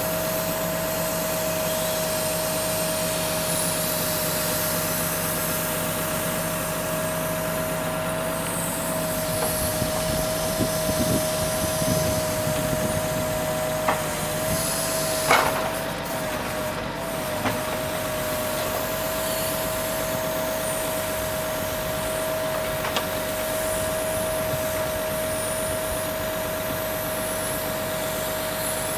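Timber lorry running with its hydraulic log-loader crane at work: a steady engine-and-pump drone with an even high whine over it. A few sharp knocks of logs being handled break through, the loudest about halfway through.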